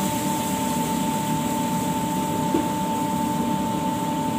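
Steady drone of commercial kitchen machinery: a fan-like hum with a constant high whine and an even hiss.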